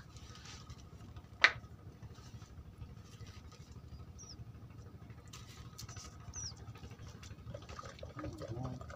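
Quiet outdoor ambience at the water's edge, a low steady rumble under it. A single sharp click comes about a second and a half in, and two faint, brief high chirps come later.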